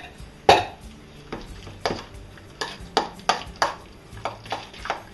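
Metal spoon clinking and scraping against a stainless steel mixing bowl while stirring sour cream and mayonnaise, in irregular strokes about two a second.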